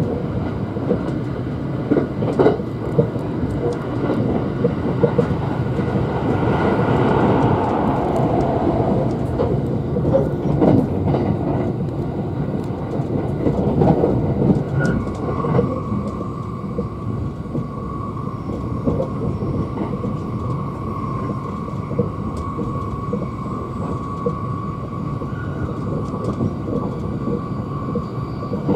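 Thunderbird limited express electric train running at speed, heard from inside the passenger car: a steady rumble of wheels on the rails with scattered clicks from the rail joints. About halfway through, a steady high whine joins in.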